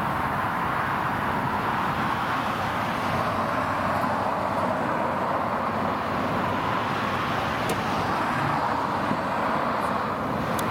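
Car driving at a steady speed: a constant rush of tyre and road noise with wind going past, heard from outside the car beside the front wheel.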